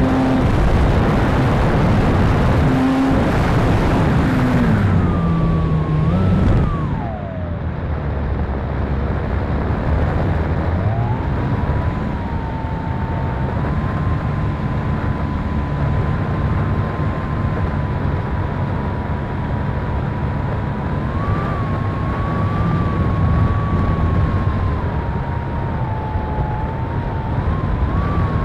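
Electric motor and propeller of an E-flite Pitts RC biplane, heard from the onboard camera with wind rushing over the microphone. It runs at high power at first, the pitch drops away at about six seconds as the throttle is pulled back, and from about eleven seconds it holds a steady part-throttle whine with small rises and dips.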